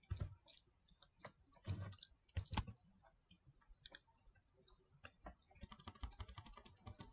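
Faint computer keyboard typing: a few separate key presses, then a quick run of keystrokes from about five and a half seconds in.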